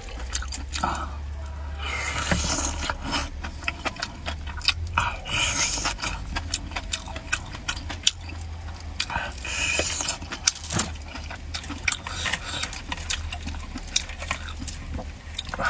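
Close-miked eating of spicy food: wet chewing and slurping with many short sharp clicks of utensils and dishes, over a low steady hum.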